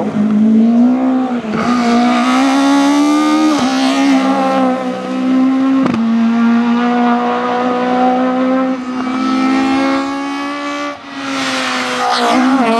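Racing car engine at high revs on a hill climb, pulling hard with brief breaks in pitch as it changes gear several times. It eases off and then picks up again near the end.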